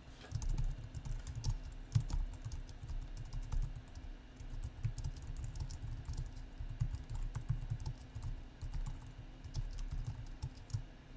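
Typing on a computer keyboard: a fast, uneven run of key clicks.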